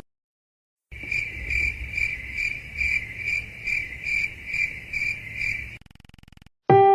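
Crickets chirping, a sound effect: an even run of high chirps, about two or three a second, starting about a second in and stopping shortly before the end.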